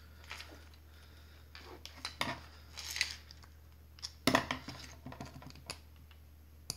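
Light plastic clicks and rattles as hands work a wire out of a solenoid coil's plastic connector plug, with a cluster of clicks about four seconds in.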